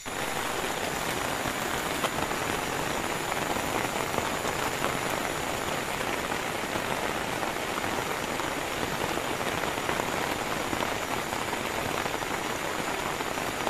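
Heavy rain falling steadily, a dense even hiss with fine scattered drop ticks, cutting in suddenly at the start.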